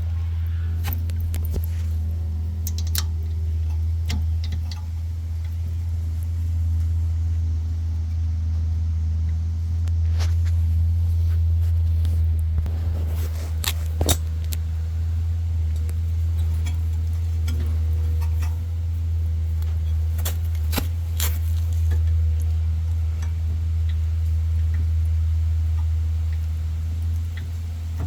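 Scattered metallic clinks of hand tools against the small 13 mm brake bolts, the loudest about 14 seconds in, over a steady low hum.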